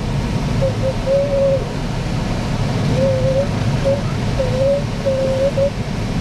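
Steady rush of airflow around a Cirrus 75 glider's cockpit, with an electronic variometer sounding a string of short, uneven mid-pitched beeps that waver slightly in pitch.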